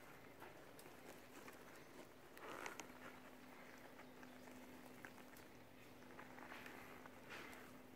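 Near silence: faint rustling and small clicks as a leather tote bag is held open and handled, with a slightly louder rustle about two and a half seconds in, over a faint steady hum.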